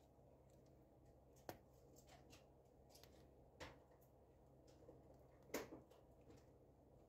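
Near silence: faint room tone broken by three short, faint clicks, about a second and a half, three and a half and five and a half seconds in, the last the loudest.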